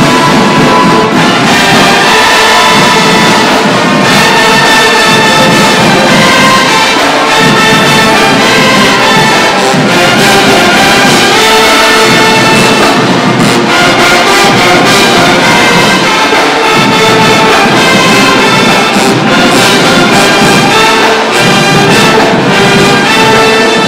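A marching band's horn line playing a loud tune together: saxophones, trumpets, trombones and sousaphones at full volume, with a steady beat of hits running under it.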